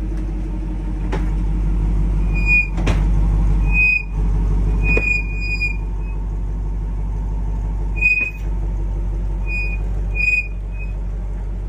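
2008 Dodge Challenger SRT8's V8 running steadily while backing up, with loud bangs from the rear drivetrain every couple of seconds, about five in all, and short high-pitched squeaks. The banging is typical of a broken drive axle or a broken gear in the Mercedes-sourced rear differential.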